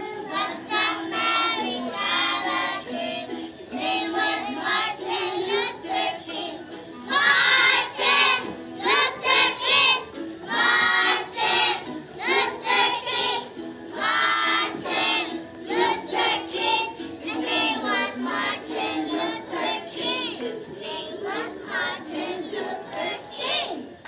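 Group of young children singing together, a children's choir, over instrumental accompaniment.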